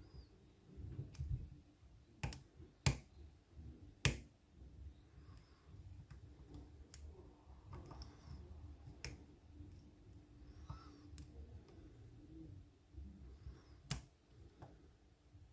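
Lock pick and tension wrench working the pins of a small brass padlock: scattered sharp clicks and ticks, the loudest about two, three and four seconds in, once around nine seconds and near the end, with fainter ticks between.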